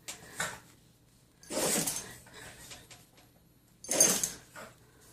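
A dog in a sneezing fit: two strong sneezes about two and a half seconds apart, each a short sharp burst, with fainter short sounds between them.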